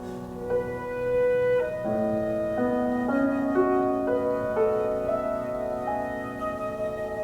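Flute and piano playing a slow contemporary classical passage: held notes that move step by step over sustained piano chords.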